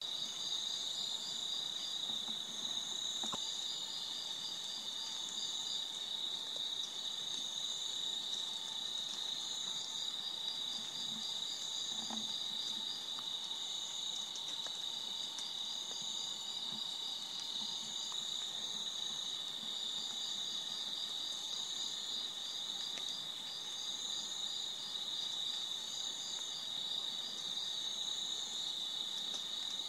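Chorus of night-calling insects: a steady high trill, a faster pulsing chirp above it, and a still higher call that comes back about every two seconds.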